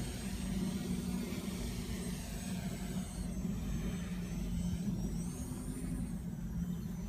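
Lumenier QAV500 quadcopter's motors and propellers buzzing steadily, with a thin high motor whine that slides up and down in pitch and rises about five seconds in.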